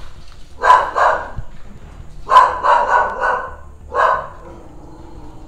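A dog barking: two barks, then a quick run of four, then a single bark.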